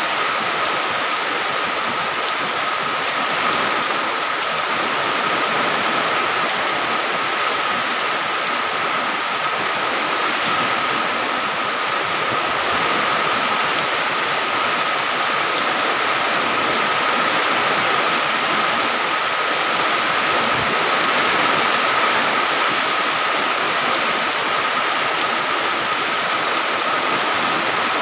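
Steady rain falling, an even hiss with no breaks, with a thin steady high-pitched tone running under it.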